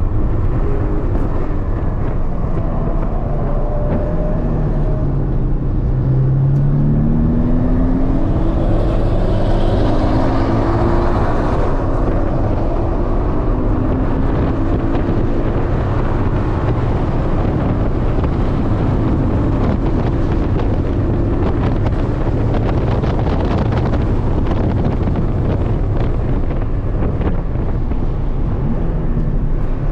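Porsche 718 Cayman's turbocharged 2.0-litre flat-four heard from inside the cabin under hard track driving, the revs climbing in several steps between about six and twelve seconds in as it accelerates through the gears. Heavy tyre, road and wind noise runs underneath throughout.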